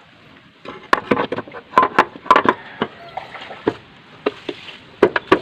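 Irregular sharp clicks and knocks of parts and tools being handled as a scooter's CVT cover is put back on. There is a cluster of taps from about a second in, and a few more near the end.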